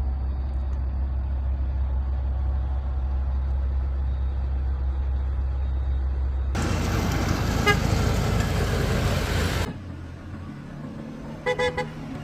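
Road traffic: a steady low vehicle rumble, then about three seconds of loud hiss, then two short car horn toots near the end.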